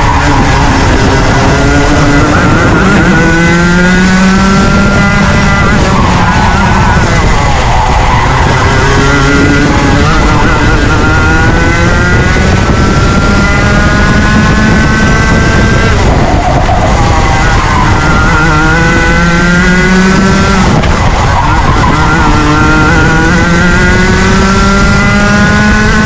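Rotax Junior 125cc two-stroke kart engine at racing speed, its pitch climbing for several seconds and then dropping back, about four times, over a steady loud rush of noise.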